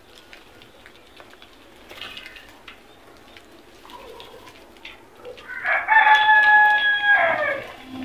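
A rooster crows once, a long held call of about two seconds starting a little past the middle and falling away at the end. Before it there are only faint short bird calls and light taps from the feeding flock.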